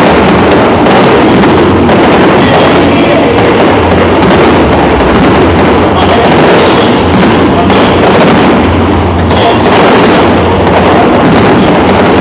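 Aerial fireworks shells bursting in quick succession, bang after bang with crackle between. The bursts are so loud the recording is overloaded throughout.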